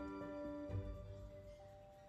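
Soft instrumental background music, with held notes that change every half second or so over a low bass note.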